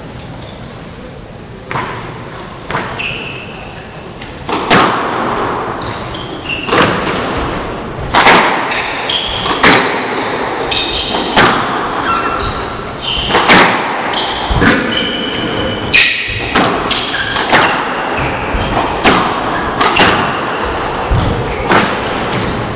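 Squash rally: the ball smacked by rackets and thudding off the walls every second or so, starting about two seconds in, each hit echoing in the court. Short high shoe squeaks on the hardwood floor come between the hits.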